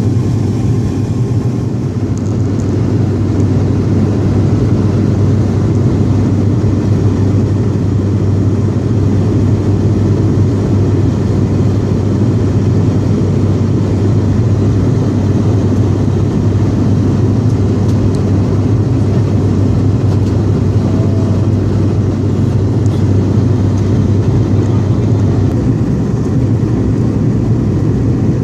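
Cabin drone of an ATR72-200's twin turboprop engines and propellers in flight: a steady, loud noise with a strong low hum, which eases slightly near the end.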